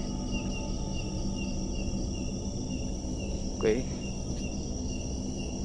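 Night insects, crickets among them: a steady high-pitched trill with a regular chirp repeating under it.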